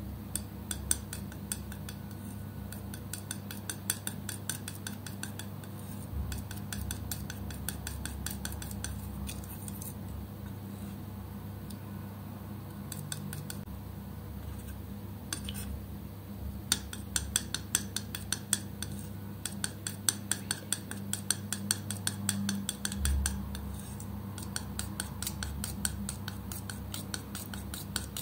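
Metal palette knife working thick acrylic paint on a smooth surface: rapid sticky clicks and scrapes as the blade presses, spreads and lifts off the wet paint, in two long busy spells with a thinner stretch in the middle. A low steady hum runs underneath.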